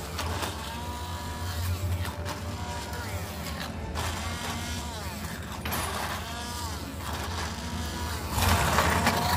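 Electric immersion hand blender running in a pan, puréeing a cooked onion, tomato and cashew gravy into a fine paste. Its motor whine dips and rises in pitch every second or two, and it gets louder near the end.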